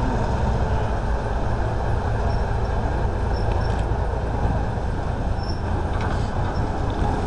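Steady low rumble of a railway turntable rotating with an electric locomotive on it, with a few faint ticks.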